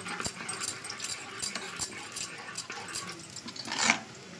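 Spoon mixing boiled potato pieces with curd and ground spices in a bowl: a run of irregular clicks and scrapes.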